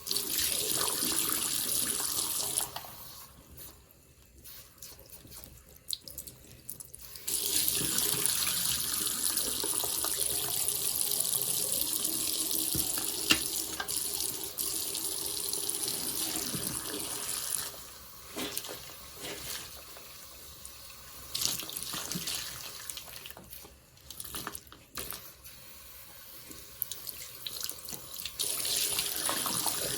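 Tap water running into a sink over a soapy sponge, starting and stopping in several stretches, the longest about ten seconds, with quieter spells between.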